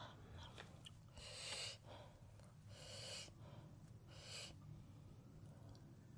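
A person's faint breathing close to the microphone: three short breaths, each roughly a second and a half apart.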